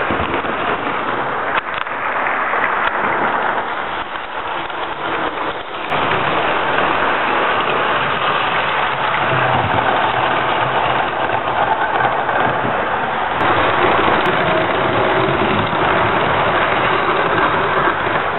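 OO gauge model trains running on the layout's track: a steady whirring noise of the small electric motors and wheels on the rails.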